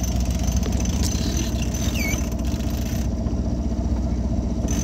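A boat's engine running steadily at idle, a low continuous hum, with a faint short squeak about two seconds in.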